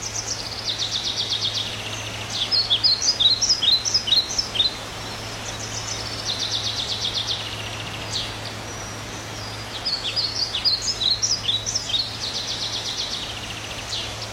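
Bird song: fast rattling trills alternating with bursts of quick, high, downward-sweeping chirps, the pattern coming round twice, over a steady low hum.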